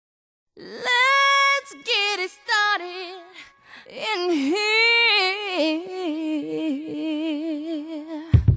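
Background music: a song opens with a solo singing voice holding long notes with vibrato, over little or no accompaniment. The voice starts about half a second in, and a steady beat comes in near the end.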